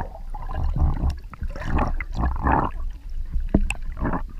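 Water gurgling and sloshing around a camera held just under the surface, heard muffled through the underwater housing, with a steady low rumble and a couple of sharp clicks about three and a half seconds in.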